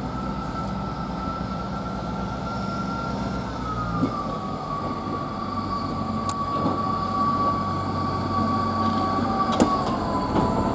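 Class 158 diesel multiple unit pulling away from a station, its underfloor diesel engines running under power. A steady high whine above the engine note steps down in pitch about three seconds in and again near the end.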